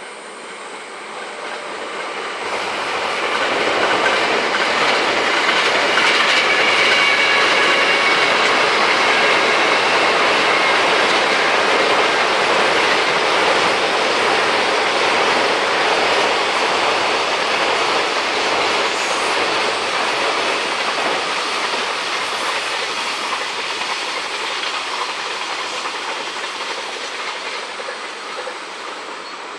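An electric train on the Hokuriku Main Line passing by on the tracks. It grows louder over the first few seconds, stays loud for about fifteen seconds, then slowly fades away.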